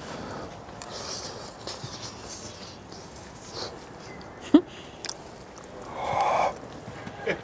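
Eating sounds at a table: soft chewing and slurping of soup, with scattered small clicks, a sharp click about four and a half seconds in, and a louder breathy rush about six seconds in.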